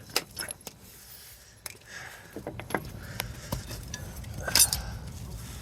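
Metallic clinks and rattles of car wheel nuts and tools being handled, as the loosened nuts come off the wheel; the loudest clatter comes about four and a half seconds in.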